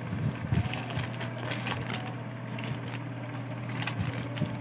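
Plastic bags and paper wrapping crinkling and rustling in the hands, an irregular run of crackles, over a steady low hum.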